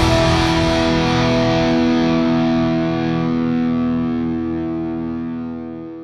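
Music: a single distorted electric guitar chord held and slowly fading away, dying out near the end.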